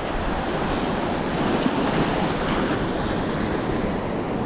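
Small sea waves washing and splashing in knee-deep water around a wading angler's legs, a steady rushing wash with wind on the microphone.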